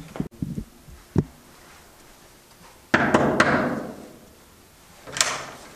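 Door bangs and knocks: a few soft thumps early, a sudden loud bang about halfway through with a rush that fades over about a second, and a sharp knock a little after five seconds.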